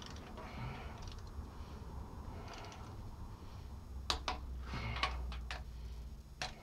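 Torque wrench clicking as it tightens a cylinder head bolt on a Ford 3.0 L pushrod V6, in the 41 foot-pound pass of the head-bolt sequence. Light scattered ticks come first, then a run of sharper clicks from about four seconds in.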